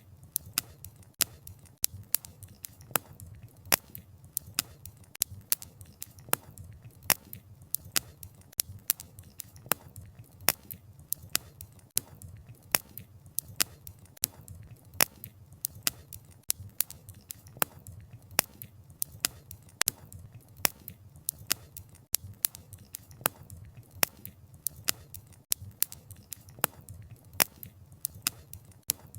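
Campfire crackling: burning wood sends out sharp, irregular pops, several a second, over a low steady rumble of the flames.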